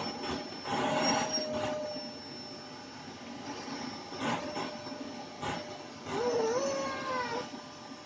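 Vacuum cleaner running with a steady whine while its nozzle is worked through a dog's coat to suck out loose shed fur. The suction noise surges a few times as the nozzle moves, and a wavering squeal rises and falls for about a second near the end.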